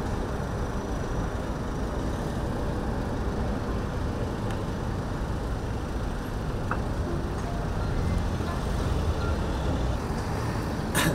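Steady low rumble of airport apron noise: distant engines and vehicles running. There is one sharp click near the end.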